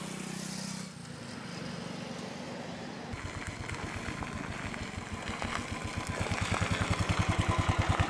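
Royal Enfield motorcycle engine running. Its low, even exhaust beat comes in about three seconds in and grows louder as the bike comes closer.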